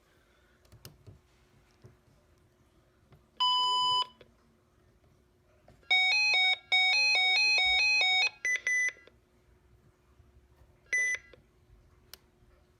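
Weather radio alert tones: a single electronic beep, then about two seconds of a two-tone siren warble switching rapidly between a lower and a higher pitch, followed by a shorter burst and one brief beep.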